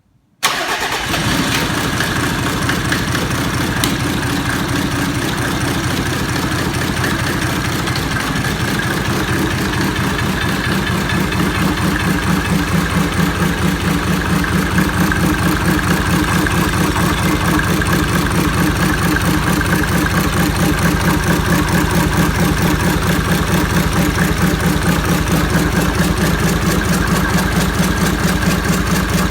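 Mercedes-Benz OM603 3.0-litre turbodiesel inline-six idling steadily. It comes in abruptly about half a second in.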